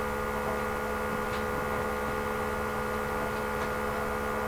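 Steady electrical mains hum, several unchanging tones at a constant level.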